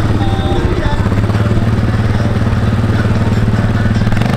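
Suzuki KingQuad ATV's single-cylinder four-stroke engine running at a steady low pitch as the quad bike rides across sand.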